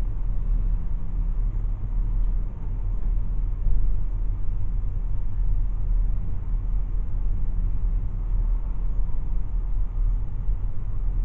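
Car driving along: a steady low engine and road rumble heard from inside the cabin.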